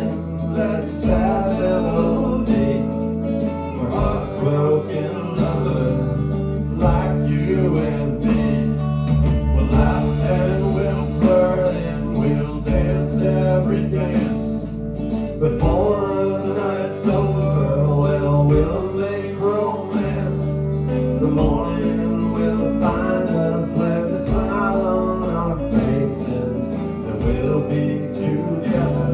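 Live band playing a country-style song, with guitar, bass notes changing every couple of seconds and a steady drum beat.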